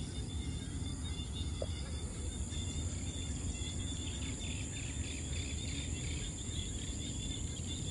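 Evening insects shrilling in a steady high-pitched drone over a low rumble, with a scatter of quick chirps joining about halfway through.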